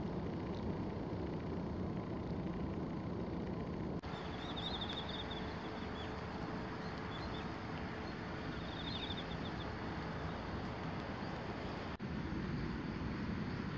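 Steady outdoor background noise with a low rumble, crossed twice by short, high, rapid trills, about four seconds in and again about nine seconds in.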